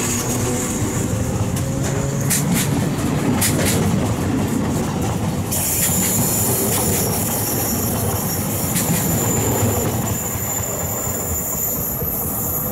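Z 5300 'P'tit Gris' electric multiple unit running past: a steady rumble of steel wheels on rail, with a thin high wheel squeal and scattered clicks as the wheels cross rail joints.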